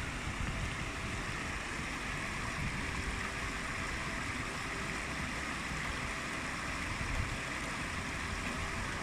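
Shallow rocky woodland stream babbling steadily over stones.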